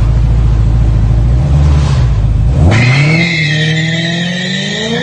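Car engine running loud and deep, then about two and a half seconds in climbing in pitch as it revs, joined by a sustained high-pitched squeal.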